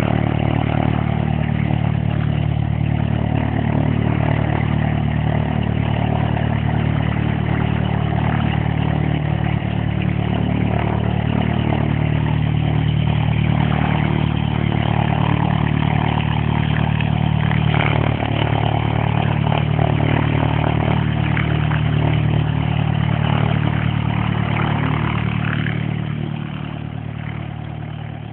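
Cessna 172 Skyhawk SP light aircraft's four-cylinder piston engine and propeller running steadily as the plane taxis past, fading near the end as it moves away.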